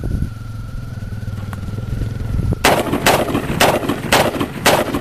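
AK-47 rifle fired in semi-automatic, about five shots in quick succession, roughly half a second apart, starting a little past halfway in, each with a short ringing echo.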